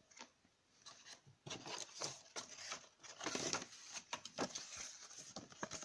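Faint handling of cardboard packaging and a folded paper manual: irregular rustles, rubs and light knocks, starting about a second in.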